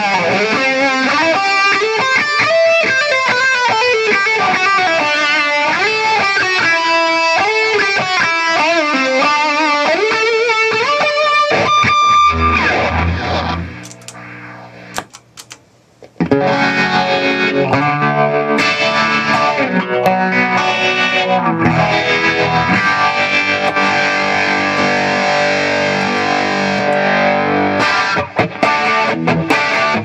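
Overdriven electric guitar lead on a Gibson Les Paul through a Mesa/Boogie Triaxis preamp's red lead channel, pushed by a TS-808 overdrive with delay: bending single-note lines ending on a held note, a pause of a few seconds near the middle, then fuller, denser playing.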